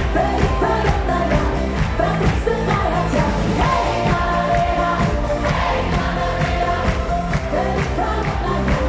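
Live schlager-pop band playing with a woman singing lead over electric guitars and a steady beat, heard through the hall's PA from within the audience.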